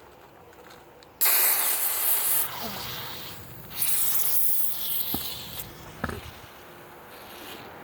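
Pressurised gas from shaken soda hissing and spraying out as the container is partly opened, in two loud bursts: one starting suddenly about a second in, a second a couple of seconds later.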